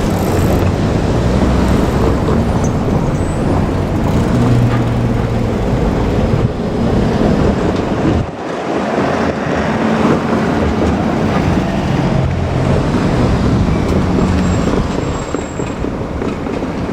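JR Kyushu 817 series electric train running past, a steady loud rumble of wheels on rail with a low motor hum that comes and goes.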